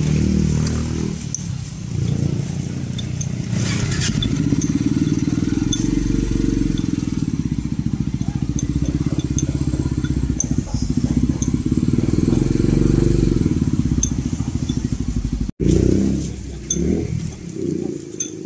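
A motorcycle engine running steadily close by, a low pulsing rumble that breaks off suddenly about three-quarters of the way through.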